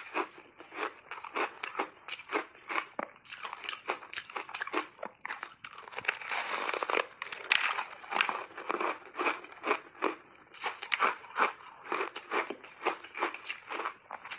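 Close-miked crunching of a layered block of ice coated in milk and matcha powder, chewed in a steady rhythm of about two to three crunches a second. A big bite gives a longer, denser stretch of crunching about six to eight seconds in.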